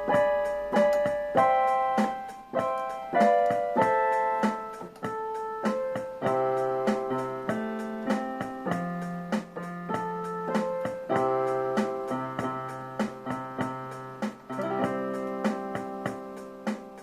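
Electronic keyboard in a piano voice playing a song's chords, each chord held and changed about every second, over evenly spaced ticks. The playing grows gradually quieter toward the end.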